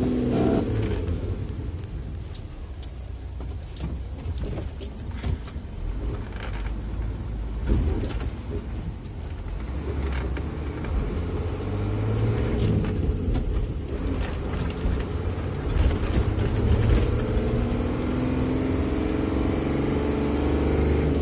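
Isuzu FVR truck's six-cylinder diesel engine heard from inside the cab while driving, its pitch rising as it pulls through the gears at the start and again near the end. Scattered clicks and rattles are heard over it.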